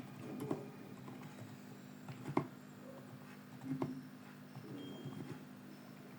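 Soft, muffled keystrokes on a PC Power Silent K98 keyboard: a few scattered key presses, the clearest about two and a half seconds in, over a faint steady hum. The keys barely make a sound, as the silent keyboard is meant to.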